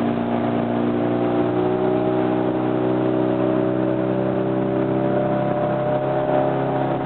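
Boat's outboard motor running at a steady speed, heard from on board the small aluminium fishing boat.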